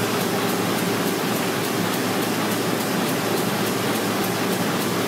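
Komori Lithrone LS 529+C five-colour sheetfed offset press with coater running in production, a steady mechanical din with a rapid regular ticking of about three to four beats a second as sheets cycle through.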